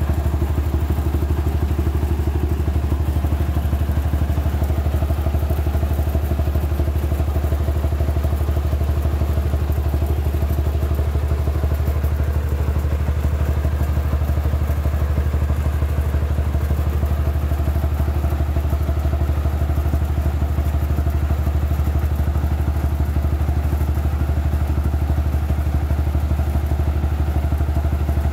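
Engine-driven portable rice milling machine running steadily under load, hulling and polishing rice, with a strong low engine hum and a faint clatter of grain.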